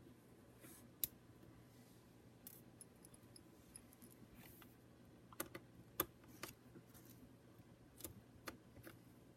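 A small screwdriver and tiny laptop screen screws give off light, sharp clicks and ticks at scattered moments as the screws are taken out. Between the clicks it is near silent.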